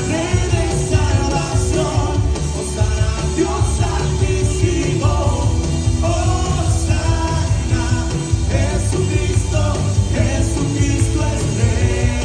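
Live Spanish-language worship song: several vocalists singing into microphones over a band with heavy bass and a steady beat.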